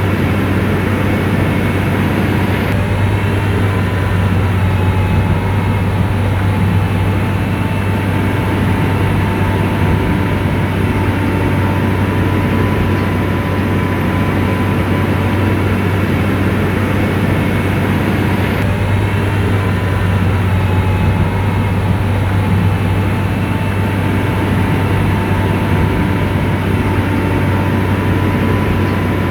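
Komatsu bulldozer's diesel engine running steadily under work, a strong low hum with a faint high whine over it.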